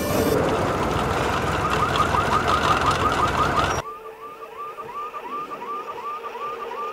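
Car alarm going off: a short rising whoop repeating about three times a second. Loud rumbling noise under it cuts off sharply a little under four seconds in, and the alarm carries on more quietly.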